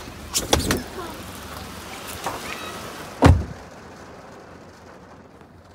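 Rain hiss coming in through an open car door, with a few clicks and knocks as a passenger climbs out. About three seconds in the car door shuts with a heavy thud, and after it the rain sounds muffled inside the closed cabin.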